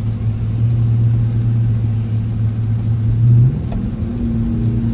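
Car engine and road noise heard from inside a moving car: a steady low hum whose note climbs briefly about three seconds in, then drops and settles into a slowly falling tone.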